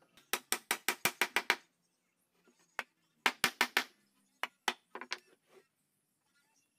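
Sharp wooden knocks and taps at a carpenter's bench: a quick run of about six a second early on, a single knock, a second quick run, then a few scattered knocks as timber pieces are handled.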